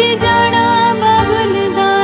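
Background music: a melody of wavering held notes over steady sustained accompaniment.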